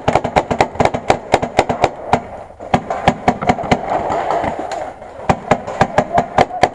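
Paintball markers firing in rapid strings of sharp shots, several a second, with two short pauses, about two and a half and five seconds in.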